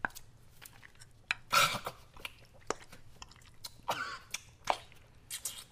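A man eating a plate of food: chewing with short noisy mouthfuls and sharp clicks of cutlery on a dish, the loudest mouthful about a second and a half in.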